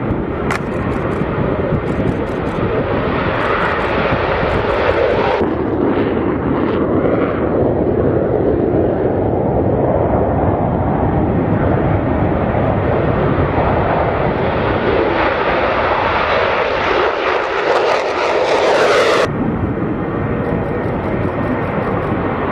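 Military fighter jets taking off, their jet engines running loud and steady at take-off power. The noise grows louder and brighter as one jet draws closer, then changes abruptly near the end to another jet's take-off.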